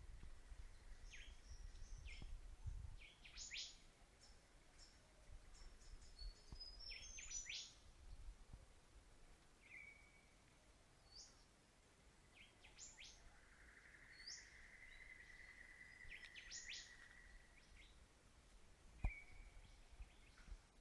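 Faint birds chirping: scattered short chirps that fall quickly in pitch, and one longer wavering call a little past the middle. A single sharp click near the end.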